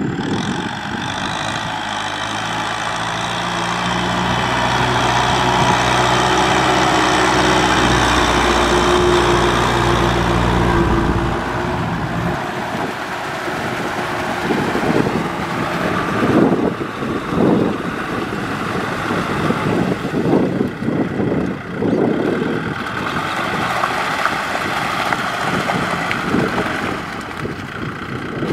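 Kubota M6040SU tractor's diesel engine running steadily as it works a rotary tiller through a rice field. About twelve seconds in the sound changes, and in the second half a rough, uneven noise surges irregularly over the engine.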